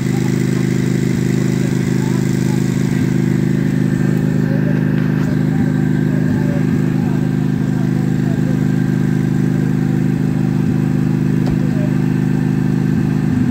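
A small combustion engine running at a constant speed, with a steady, even drone.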